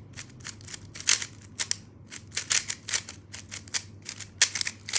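A GAN 11 M Pro magnetic speedcube being turned fast during a timed solve: rapid, uneven clusters of plastic clicks and clacks from the layers snapping into place.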